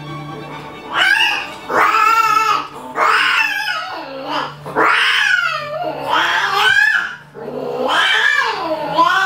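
Domestic cat yowling, about seven drawn-out calls in a row starting about a second in, each rising and falling in pitch.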